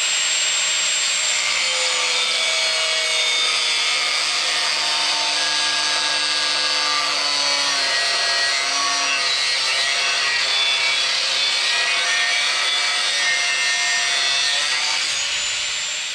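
Angle grinder with a cutting disc slitting a short length of metal tube lengthways: a loud, steady high whine with the disc's cutting noise shifting as it bites. It winds down near the end.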